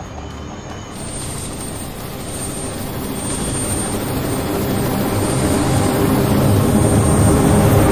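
Attack helicopter rotors and turbine engines running, a steady beating rotor noise with a thin high whine from about a second in, growing louder throughout.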